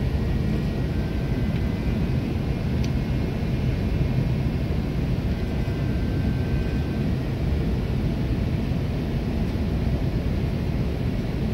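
Steady low rumble of airflow and engine noise inside an Airbus A330's cockpit on final approach.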